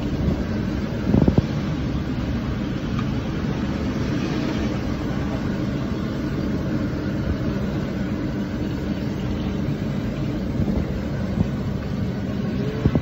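A steady machine drone with a low, even hum, like a motor or burner blower running in a large kitchen. There is a short metallic clank about a second in.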